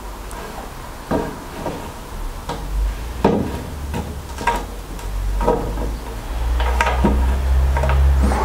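Metal rip fence guide rail being worked along the edge of the saw table and onto its mounting bolts, with irregular knocks and scrapes of metal on metal about once a second. A low rumble builds from about halfway and is loudest near the end.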